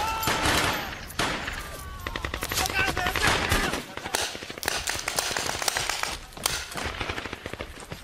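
Paintball markers firing in rapid strings of shots, several guns going at once.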